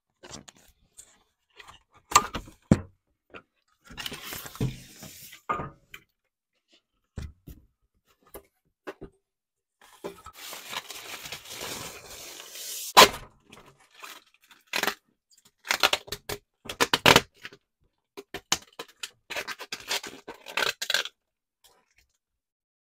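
An Acrylite acrylic frame sheet being handled and its plastic protective film peeled off: scattered knocks and scrapes, a long rustle about ten seconds in that ends in a sharp knock, then repeated bursts of crinkling film.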